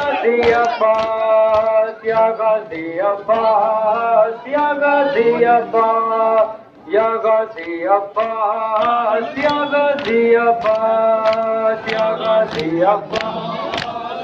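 Male voices chanting a Muharram nauha, a lament, to the beat of matam: hands slapping chests in rhythm about twice a second. The chant breaks off briefly about halfway, then resumes.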